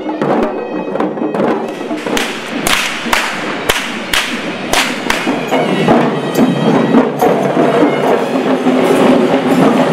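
Sri Lankan perahera procession sounds: a string of sharp whip cracks over the first five seconds above traditional drumming, then sustained reedy wind-instrument tones join the drums from about six seconds in.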